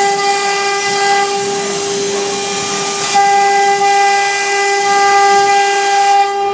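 Chinese 3 kW water-cooled CNC router spindle running at high speed while engraving MDF: a steady high whine with a cutting hiss over it, the hiss growing stronger about three seconds in.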